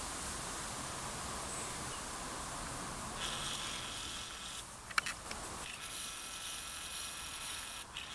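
A camera's zoom motor whirring in two runs, a short one about three seconds in and a longer one from about six to eight seconds, with a sharp click between them, over a steady outdoor hiss.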